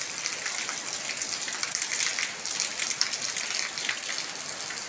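Heavy rain falling on pavement and roofs: a dense, steady hiss full of sharp drop ticks.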